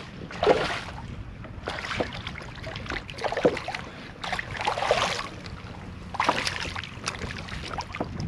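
Water splashing in about five short bursts, with a few light clicks and knocks, as a hooked sheepshead is reeled in to the kayak.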